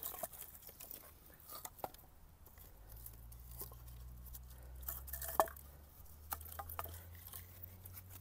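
Split oak firewood knocking and clattering lightly as pieces are laid crosswise onto a log stack: a scatter of soft wooden clicks, with one sharper knock about five seconds in. A faint low drone runs underneath from about three seconds in.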